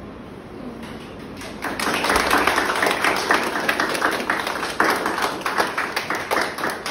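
A group of children clapping in applause, the clapping starting about a second and a half in.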